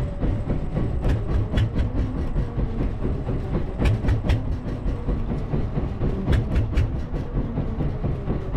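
Small fishing boat's engine running with a steady low rumble, with irregular sharp clicks and knocks in clusters about one, four and six to seven seconds in.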